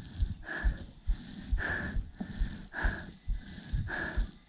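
A hiker breathing hard close to the microphone, about one breath a second, with low thumps underneath.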